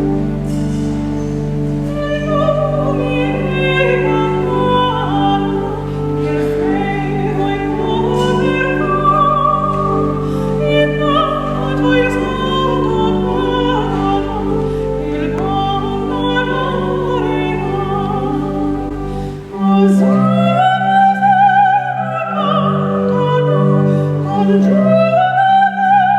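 Soprano singing opera with a wide vibrato over instrumental accompaniment. About twenty seconds in, the low sustained notes of the accompaniment stop and the music moves into a different passage.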